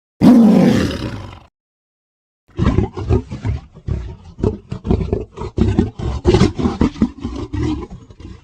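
Tiger sound effects: a single short roar that falls in pitch and fades, then after a pause a long run of short rough growling pulses, about three to four a second.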